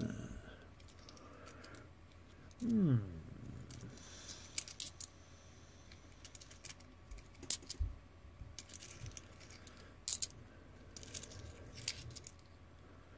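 Australian 20-cent coins clicking and clinking faintly against each other and the fingers as they are handled one by one, in scattered light clicks at irregular intervals.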